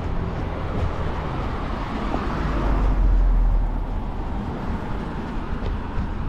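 Road traffic on a city street: steady noise of passing cars, swelling as a vehicle goes by close about halfway through, then fading.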